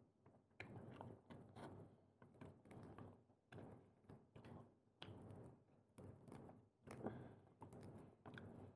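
Quiet eating of prawns and clams: irregular soft chewing and handling of shells, with scattered light clicks and taps.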